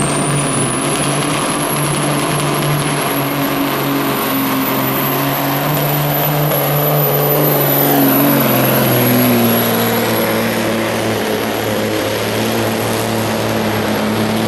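1996 Peterbilt semi's turbo diesel engine at full throttle, pulling a weight sled, with a high turbocharger whistle held over the engine's steady note. About halfway through, the engine pitch sags as the sled's growing load pulls it down.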